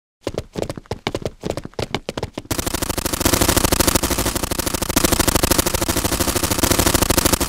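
Automatic rifle fire from several guns. It starts as short separate bursts, and from about two and a half seconds in becomes continuous rapid fire.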